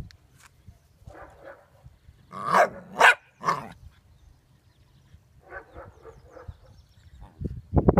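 Corgi puppy barking: three sharp, loud barks in quick succession about two and a half to three and a half seconds in, with fainter short yips before and after. A few low thumps near the end.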